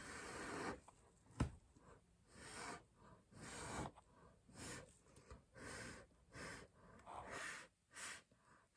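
Short puffs of breath blown through a drinking straw onto wet acrylic paint to push out a bloom, about one a second, with one sharp tap about a second and a half in.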